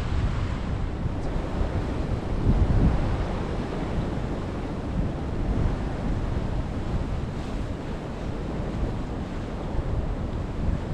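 Sea surf breaking on the rocks, with wind buffeting the microphone; a wave swells a little louder about two to three seconds in.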